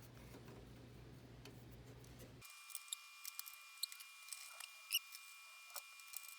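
Faint, scattered small clicks and ticks of a screwdriver driving the screws that hold a motherboard into a PC case, starting a couple of seconds in.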